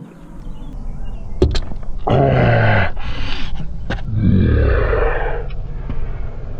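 A man groaning twice with strain, each groan falling in pitch, while working a plastic door-panel clip loose; a few sharp clicks come before and between the groans.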